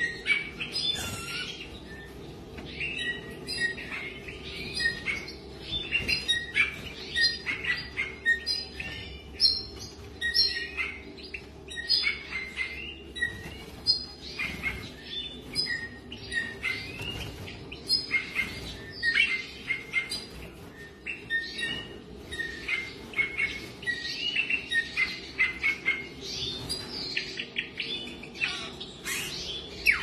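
Small songbirds kept in an aviary chirping and twittering, many short calls overlapping in quick succession, over a steady low hum.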